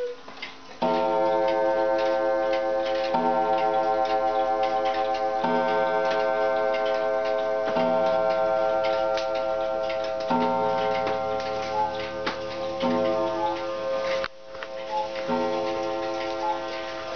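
Striking clock counting the noon hour on its gong: a deep, rich, long-ringing stroke about every two and a half seconds, seven strokes in all, over steady clock ticking. A few faint higher dings from another clock join in the second half.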